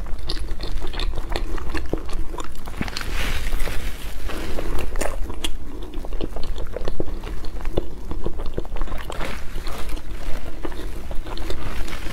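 Close-miked biting and chewing of a soft crepe towel roll with runny custard filling: sticky, wet mouth sounds with many small irregular clicks.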